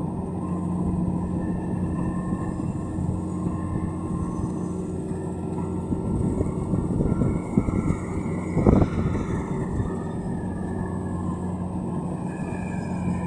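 Kubota DC-70 combine harvester's diesel engine running steadily while cutting rice, with a few knocks and clatters between about six and nine seconds in, the loudest near nine seconds.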